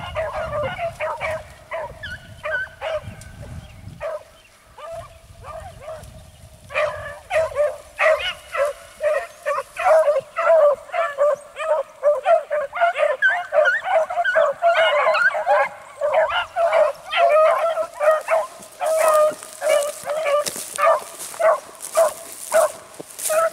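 A pack of beagle hounds in full cry on a chase: many overlapping bays and yelps, thinning for a few seconds and building again to a dense chorus about seven seconds in.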